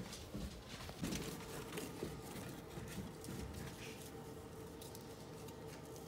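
Soft, irregular footfalls on carpeted stairs: a small dog's paws pattering down the steps with a barefoot person following. A faint steady hum runs underneath.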